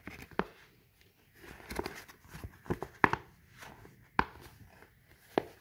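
Scored polypropylene sheet crackling as it is flexed and pressed into folds by hand, with a sharp snap about once a second as each crease pops into place.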